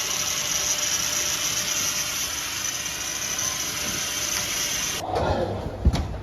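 A steady high-pitched hiss that cuts off suddenly about five seconds in, followed by a few knocks.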